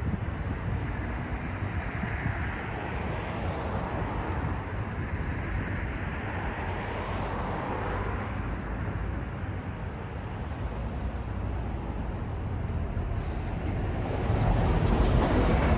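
City street traffic: a steady wash of engines and tyre noise with vehicles passing one after another, and one passing louder and closer near the end with a rise in tyre hiss.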